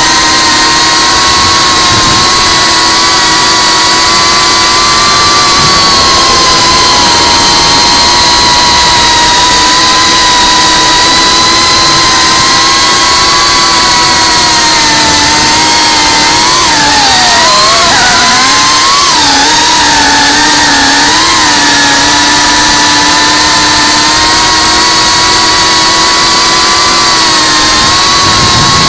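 Electric motors and propellers of an FPV quadcopter heard from its onboard camera: a steady, loud whine over a rushing hiss. The pitch dips and wobbles for a few seconds around the middle as the motor speed changes.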